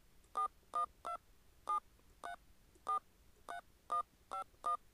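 Telephone keypad touch-tones (DTMF): ten short two-tone beeps at an uneven pace, a mailbox number being keyed into a voicemail system.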